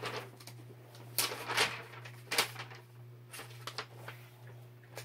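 A few short rustles and handling noises of paper and packaging, over a steady low hum.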